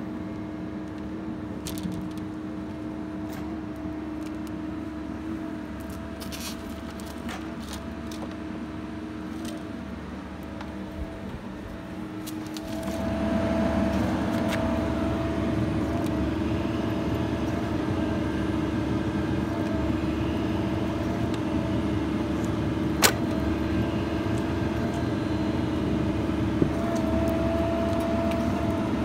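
Hydraulic machinery of a pipe-bursting cable puller running steadily with a steady pump whine, growing louder about halfway through; one sharp click near the end.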